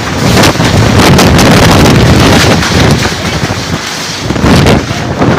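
Storm-force wind gusts blasting against the microphone as a loud, rushing roar, heaviest about half a second to two and a half seconds in, slackening, then gusting again near the end.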